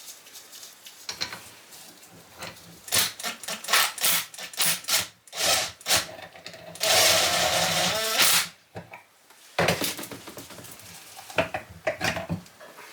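Clinks, knocks and clatter of hand tools and small metal engine parts being handled, with one harsher grinding noise lasting about a second and a half past the middle.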